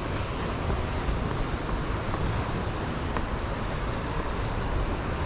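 Wind buffeting the microphone: a steady rumbling hiss with no clear pitch, with a couple of faint ticks.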